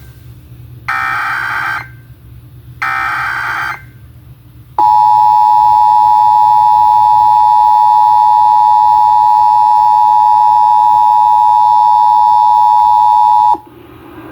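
Emergency Alert System test broadcast: the last two bursts of the SAME digital header, raspy data bursts about a second long each. About a second later the two-tone EAS attention signal (853 and 960 Hz) comes on, a loud steady dual tone held for about nine seconds before it cuts off.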